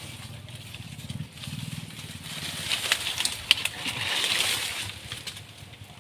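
Dry palm fronds and leaf litter rustling and crackling as they are trodden on and pushed aside by hand, with sharp snaps of stiff frond stems in the middle, over a low rumble.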